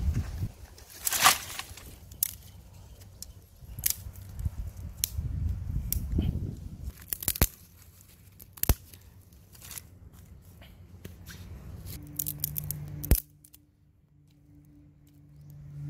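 Dry sticks and brush snapping, crackling and rustling as they are handled, in a string of sharp snaps and crunches. A steady low hum comes in near the end.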